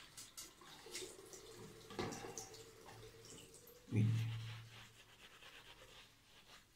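Soft, wet rubbing of a chunk of shaving soap and thick lather being worked into a damp beard, with a brief low hum about four seconds in.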